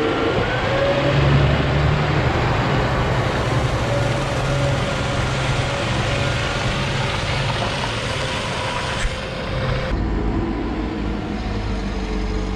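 A New Holland tractor running steadily as it drives past towing a tipper trailer. About ten seconds in, the sound cuts to the lower rumble of a Liebherr L550 wheel loader's engine.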